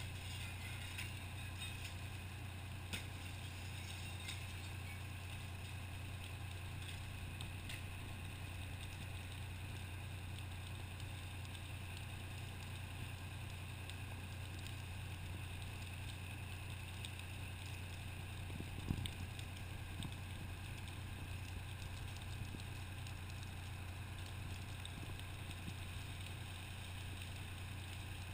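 Fire engine's diesel engine running steadily at a low drone while it pumps water into the charged hose lines. A short knock sounds early on and a louder one about two-thirds through.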